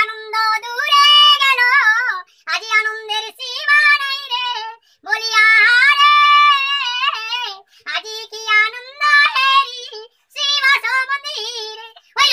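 An elderly man singing unaccompanied in a high voice, in sung phrases of a second or two with short breaks for breath.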